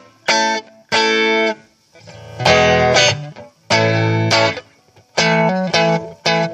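Electric guitar played through a Trinity Tweed amp, neck pickup with the guitar volume rolled back to about 75% and the amp volume on 5: about seven separately struck chords and notes, each left to ring and fade, with short gaps between.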